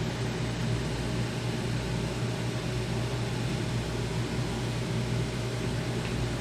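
Steady, unchanging hum and hiss of background noise, like a fan, with a strong low drone and no music.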